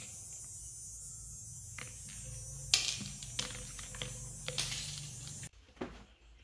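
Used AA batteries being picked up and set down on a rubber mat: a handful of light clicks and knocks, the sharpest about three seconds in. Under them is a steady hiss that cuts off abruptly about five and a half seconds in.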